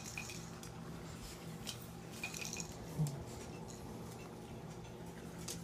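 Quiet dinner-table sounds: scattered light metallic clinks and ticks over a steady low hum, with one short, louder low sound about three seconds in.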